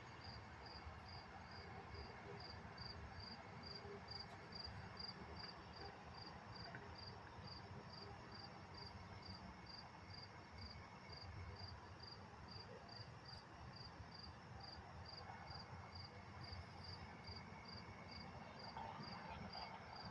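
A cricket chirping steadily and faintly, about two short high chirps a second, over a low background hiss.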